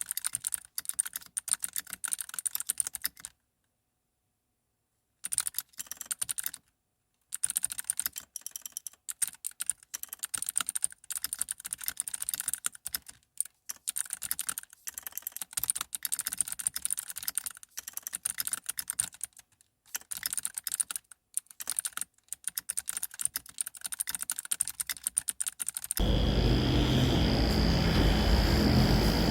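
Fast typing on a computer keyboard, a quick stream of key clicks broken by two short dead-silent gaps. A few seconds before the end it cuts suddenly to a steady low rumble with a faint high tone.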